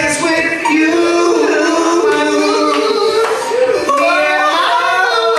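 Men singing into microphones through a PA system, long held notes that slide up and down in pitch.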